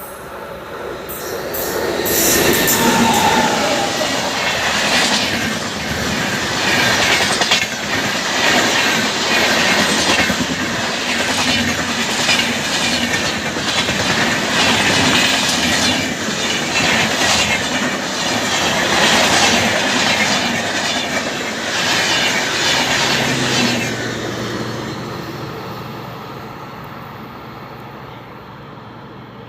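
Indian Railways express passenger train passing at speed: the rush of the train swells up, with a steady clickety-clack of wheels over rail joints for about twenty seconds, then fades away as it leaves.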